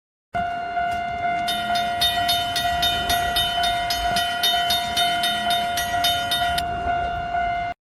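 Train sound effect: a horn-like tone held steady for about seven seconds over train running noise. Through the middle a railroad crossing bell rings about three times a second, then stops.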